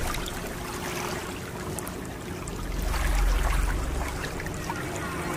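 River water splashing and rushing past a moving boat, with a low rumble that swells about halfway through and a faint steady hum underneath.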